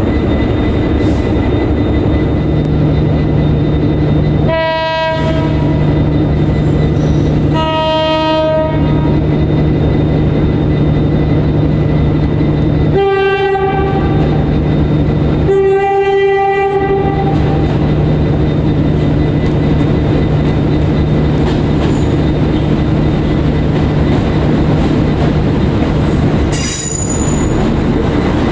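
Northern Ireland Railways diesel trains sounding their horns as they run into the station: two blasts at one pitch, then two blasts at a lower pitch, over the steady low running of the diesel engines. A brief high squeal comes near the end.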